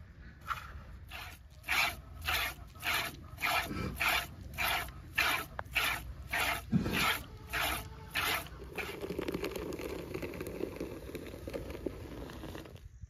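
Cow being milked by hand: rhythmic squirts of milk hitting the pail, a little under two a second, giving way about nine seconds in to a steadier, duller hiss that cuts off suddenly.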